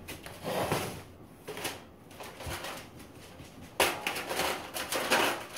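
Disposable aluminium foil pans crinkling and clattering as they are pulled down from a stack. The noise comes in short scrapes at first and is loudest and busiest from about four seconds in.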